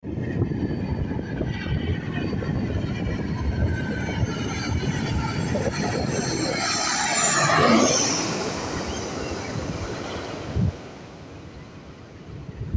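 Jet airliner passing low overhead on its landing approach: the engine noise swells to a peak about eight seconds in, its whine dropping in pitch as the aircraft goes over, then fades away. Wind buffets the microphone.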